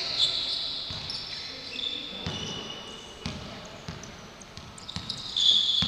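Basketball sneakers squeaking on a gym court floor as players run, with the dull thuds of a basketball and footfalls on the court. The loudest squeaks come near the end.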